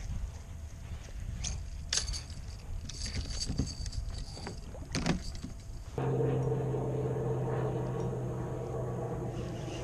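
Scattered clicks and knocks of a rod and reel being worked against a hooked red drum from a kayak, over a low rumble. About six seconds in, a steady low mechanical hum starts abruptly and keeps going.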